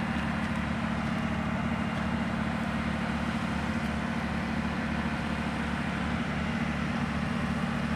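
A vehicle engine running steadily at an even speed, a constant low hum with no change in pitch.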